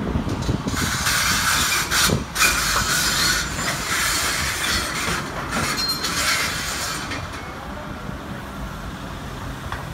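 Hydraulic excavator demolishing a building: a dense, loud noise of crunching and scraping debris over the machine's engine, with a couple of sharp knocks about two seconds in, easing off in the last few seconds.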